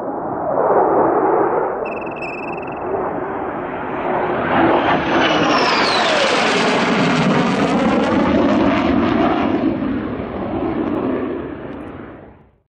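Aircraft flyby sound effect: a jet-like rush that builds up, with a whine falling in pitch about five seconds in as it passes, then fades out near the end. A short high beep sounds about two seconds in.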